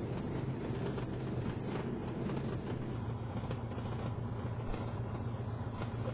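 Zodiac 601 light sport aircraft's engine and propeller running steadily at low power as the plane rolls along the runway and taxiway after landing, heard from inside the cockpit.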